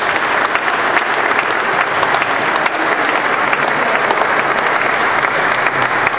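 Audience applauding, a dense, steady clapping that holds its level throughout.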